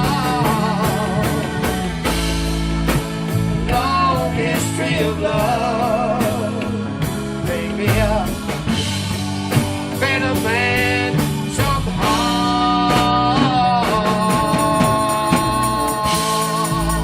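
Live blues band playing the instrumental close of a slow blues song: drums keeping a steady beat under bass and a wavering, bending lead line. About three seconds before the end it settles into one long held chord with cymbals ringing.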